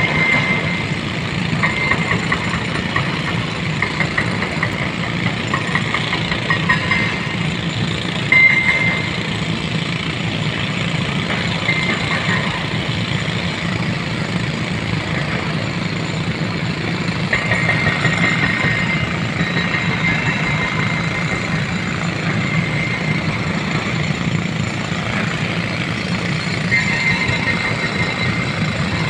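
Hyundai excavator's diesel engine running steadily, with high squeals that come and go throughout.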